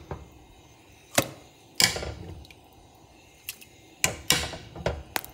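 Metal tongs clinking and clanking against a metal pot as cooked oxtails are lifted out of the broth. A few separate knocks, the sharpest about a second in, with a quick run of light clicks near the end.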